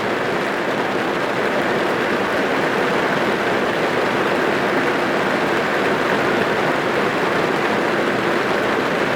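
Steady rain falling on a car's roof and windows, heard from inside the car.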